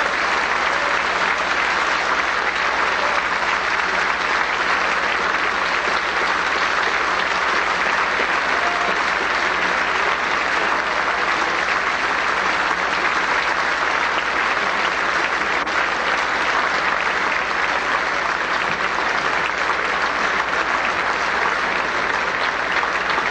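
Audience applauding steadily, a dense, unbroken ovation.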